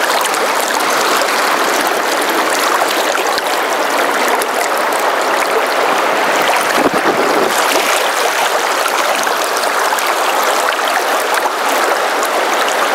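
Fast, choppy river current rushing steadily: an even water noise that stays the same throughout.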